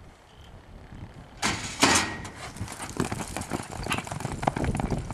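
A dun Quarter Horse gelding's hooves striking the ground in an irregular beat. They start with a sudden rush of noise about a second and a half in, after a quieter opening.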